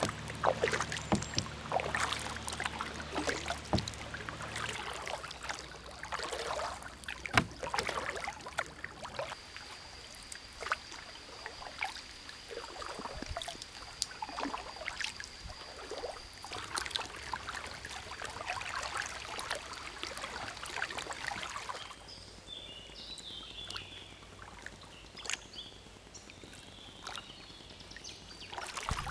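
Kayak paddle strokes dipping into still canal water, with irregular splashes and drips. About three-quarters of the way through the sound changes abruptly: the paddling gets softer and short bird chirps come in.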